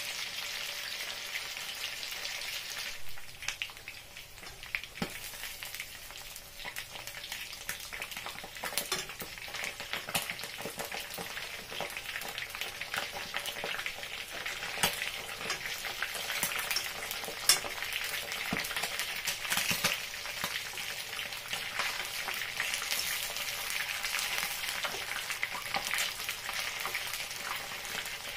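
Pieces of whiting sizzling and crackling as they fry in hot palm oil and vegetable oil in a pan: a steady hiss with constant small pops. A few sharper clicks come from a fork turning the fish against the pan.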